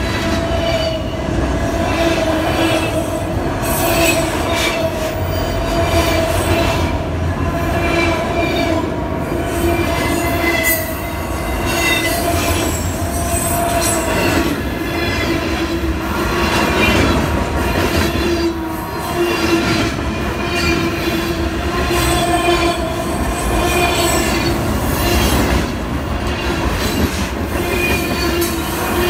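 Union Pacific freight cars rolling past at close range with a steady, continuous noise. Over it, wheels squeal in a sustained tone and wheels clank over the rail joints at irregular intervals.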